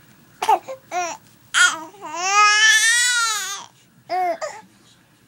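Infant babbling and cooing: a few short sounds, then one long drawn-out coo that rises and falls in pitch about two seconds in, and two more short sounds near four seconds.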